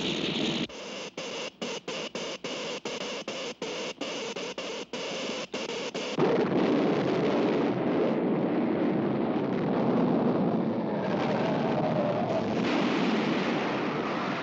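Cartoon sound effects of an earthquake being set off: a dense hissing noise that stutters with rapid, irregular cut-outs. About six seconds in, it gives way to a louder, continuous rumble.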